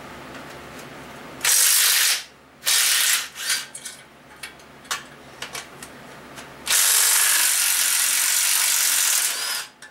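Ratchet wrench clicking rapidly as bolts are run out of the Chevy 4.3 V6 engine: two short bursts, a few single clicks, then one long run of about three seconds.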